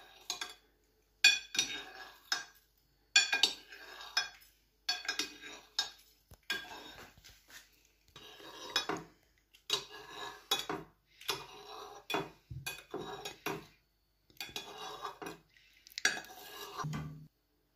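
Pizza-cutter wheel rolling through set jelly and scraping and clinking against the bottom of a cut-glass bowl, in repeated short strokes with brief pauses between them.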